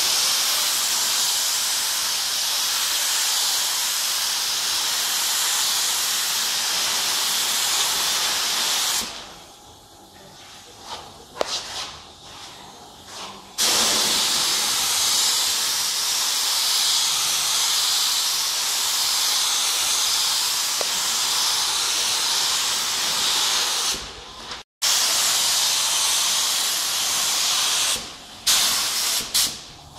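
Compressed-air spray gun hissing as it sprays lacquer onto a wooden boat hull. The hiss runs steadily for about nine seconds, stops for a few seconds, runs again for about ten seconds, then for a few more, and ends in several short bursts as the trigger is pulled briefly.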